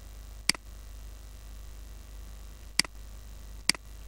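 Three sharp computer mouse clicks, one about half a second in and two close together near the end, over a steady low mains hum.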